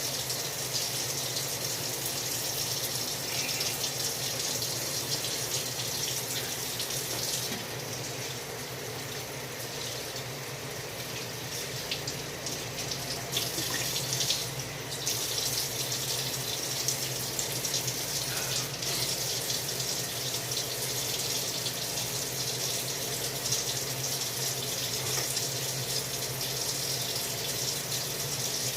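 Tap water running steadily into a sink, with a few faint knocks partway through.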